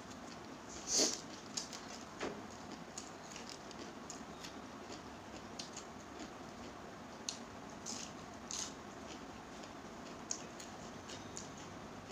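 Close-up mukbang eating sounds: scattered short clicks and smacks from chewing and from fingers working rice on a plate, over a faint steady hiss. The loudest click comes about a second in.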